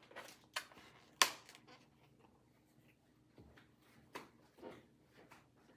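Faint, scattered clicks and taps in a quiet room; the sharpest comes a little over a second in, with softer ones around the middle.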